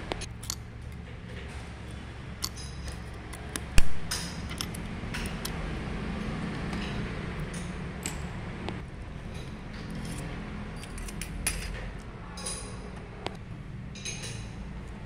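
Metal tools clicking, clinking and scraping against the parts of a dismantled diesel injection pump, with one sharp metallic knock about four seconds in, over a steady low hum.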